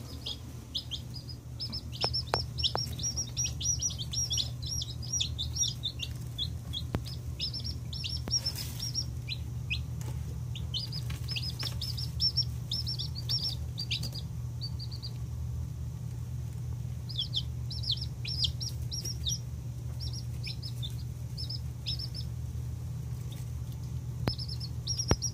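Gold Sex Link chicks peeping: runs of short, high, falling chirps with a couple of brief lulls, over a steady low hum.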